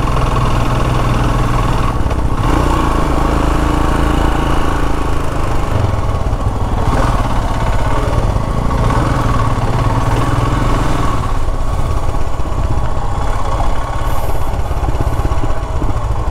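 Royal Enfield Himalayan's single-cylinder engine running while the bike is ridden along a road, heard from the handlebars, its note rising and falling a little with the throttle.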